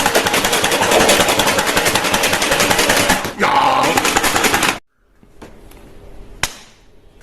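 Rapid automatic machine-gun fire sound, a fast even stream of shots that cuts off suddenly about five seconds in. A single sharp click follows a little later.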